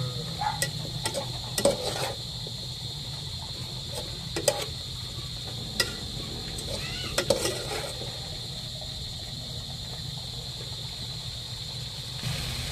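Metal spoon stirring in an aluminium pot, clinking and scraping against the side several times in the first eight seconds, then stopping. A steady low hum and a steady high whine sit underneath throughout.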